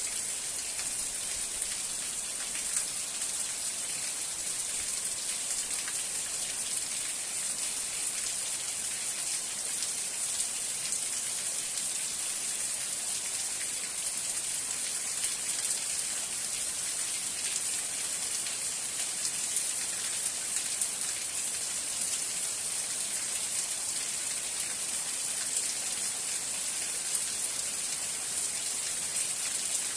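Steady rain falling: an even hiss with many fine drop ticks throughout.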